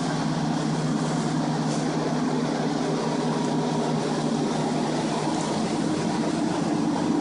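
Several centrifugal air movers (snail-shell carpet-drying blower fans) running together: a steady hum with an even rush of air, the structural drying of a flood-damaged room.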